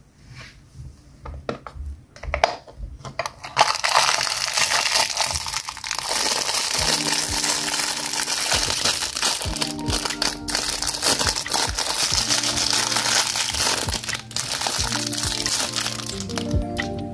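Clear plastic wrapper crinkling steadily as a small toy figure is unwrapped, after a few light clicks of hard plastic toy parts being handled. A light background melody comes in about seven seconds in.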